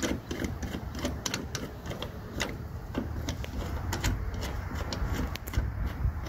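Hand rivet-nut installer's threaded mandrel being wound back out of a freshly crimped rivet nut: irregular light metallic clicks and ticks, a few a second.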